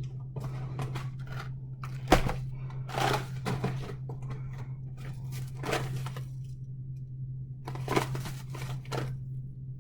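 Food packages being handled and turned over: intermittent plastic crinkling and rustling, with a sharp knock about two seconds in, over a steady low hum.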